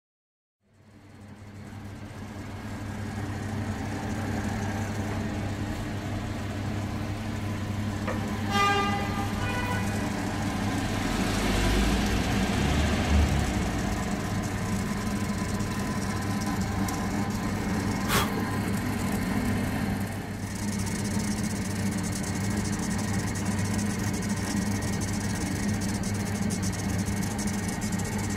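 Novidrill 400 II EDM hole-drilling machine running while its fine tube electrode erodes a small deep hole: a steady electrical hum over a constant machine noise. A short pitched sound comes about nine seconds in and a sharp click about eighteen seconds in.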